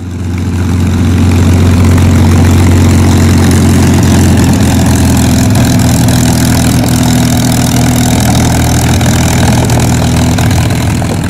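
North American P-51D Mustang's Packard Merlin V-12 engine and propeller running steadily at low taxi power, fading in over the first second.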